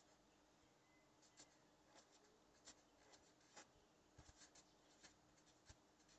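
Felt-tip marker writing on a paper card: about a dozen faint, short scratches as the pen strokes touch the paper, starting about a second and a half in. Otherwise near silence.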